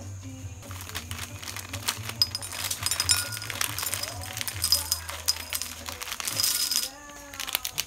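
Dry cereal pieces poured into a ceramic bowl, a dense rattling patter of small pieces clinking against the bowl and each other. It starts about half a second in, thickens toward the end and stops about a second before the end.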